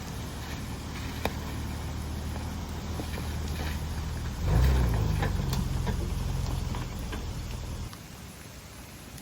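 Vehicle engine running while driving, with scattered knocks and rattles. It grows louder and shifts pitch about halfway, then drops away suddenly near the end.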